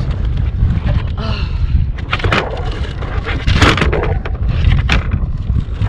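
Wind buffeting the microphone, with irregular scrapes and knocks of a landing net's frame and mesh being handled on a kayak, and a louder rustling scrape about three and a half seconds in.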